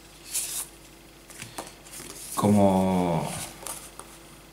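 Small printed paper instruction sheets and game cards rustling and sliding as they are handled, with a brief rustle about half a second in. Partway through, a drawn-out hesitation sound from a voice, slowly falling in pitch, is the loudest thing heard.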